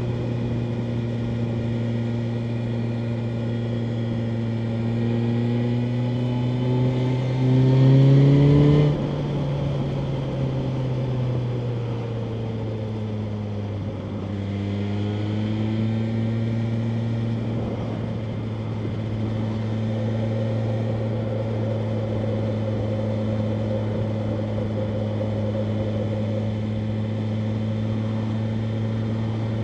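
BMW M1000R Competition's inline-four engine under way: its pitch climbs and it gets louder to a peak about nine seconds in, then the revs fall away as the throttle closes. The revs pick up again a few seconds later and hold steady for the rest.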